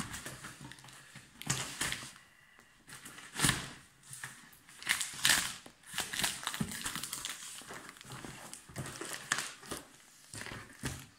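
Packing tape and plastic wrap on a cardboard box crinkling and rustling as the box is handled and turned, with short sharp rustles and bumps scattered throughout.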